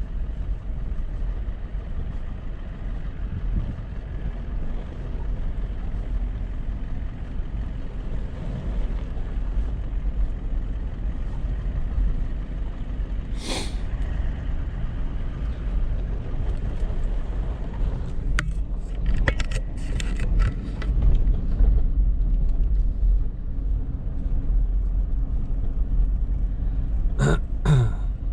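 A vehicle's steady low engine and road rumble, as heard from a car on the move. A short squeak comes about halfway through, a run of clicks and rattles follows a few seconds later, and a brief pitched sound comes near the end.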